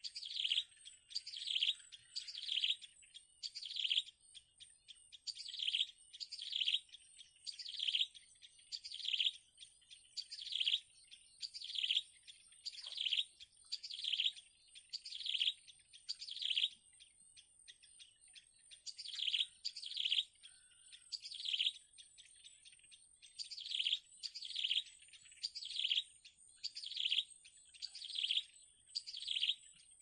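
Bittern chick cheeping: short, high, downward chirps repeated about one and a half times a second in long runs, with a couple of short breaks.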